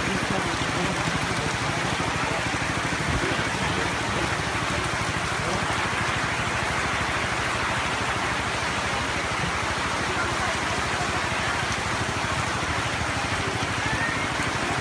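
Steady rush of water, an even hiss that holds at the same level throughout with no breaks or distinct events.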